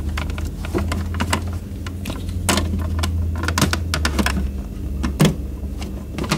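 Plastic parts of a coffee machine's mixer-bowl assembly clicking and knocking as they are handled and fitted back together, the loudest knocks about two and a half and five seconds in. A steady low hum runs underneath and fades about five seconds in.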